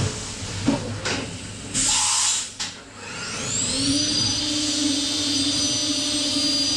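Mazak 5-axis horizontal machining center milling aluminium, first with irregular cutting noise and a short hiss near two seconds. About three seconds in its spindle speeds up with a rising whine, then holds a steady high whine at 18,000 rpm while a 16 mm barrel end mill cuts.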